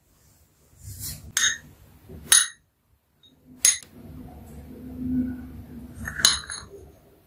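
Steel spoon clinking against a glass bowl of salt: about five sharp, ringing clinks spread across the few seconds, with quieter low handling noise between them.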